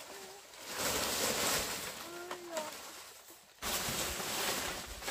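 Fresh fan-palm fronds rustling and scraping as they are handled and laid onto a bamboo roof frame for thatch. The rustling eases off and then starts again abruptly about three and a half seconds in, with a couple of brief faint voice-like sounds about two seconds in.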